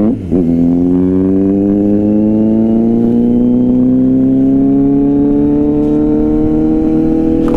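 Superbike engine accelerating: a quick dip in revs just after the start, like a gear change, then a long, steady rise in pitch as it pulls through the gear.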